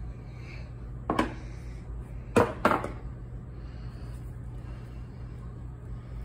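Three sharp knocks against a hard surface, one about a second in and two in quick succession a second and a half later, over a steady low hum.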